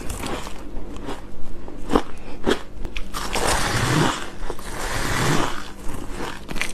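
Close-miked biting and chewing of packed shaved ice: a few sharp cracks about two seconds in, then two longer stretches of squeaky, crunchy chewing.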